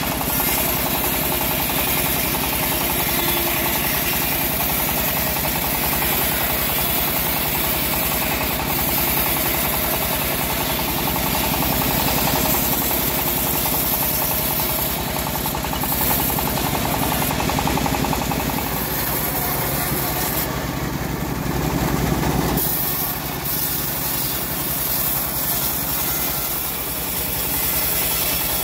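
Homemade bandsaw mill running, its blade sawing lengthwise through a teak log with a steady, dense machine noise. Near the end the deep low rumble drops away and the sound changes.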